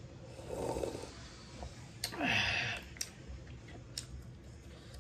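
A person drinking broth from a mug: a swallow under a second in, then a louder slurp a little past two seconds in.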